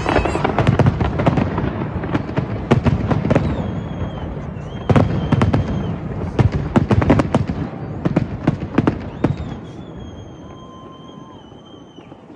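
Fireworks display: a dense barrage of bangs and crackles that thins out after about nine seconds. Long, steady high whistles sound over it in the second half.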